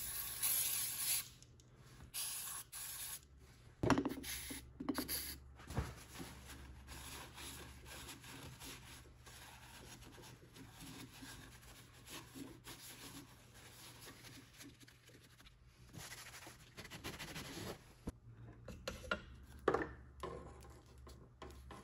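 Carburetor-cleaner aerosol hissing for about a second, then a paper towel rubbing over the carburetor, with a few light clicks and knocks from handling.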